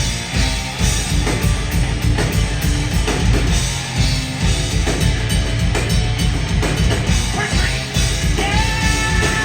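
Heavy metal band playing at full tilt, with distorted electric guitars and fast, dense drumming on a drum kit. A long held note comes in near the end.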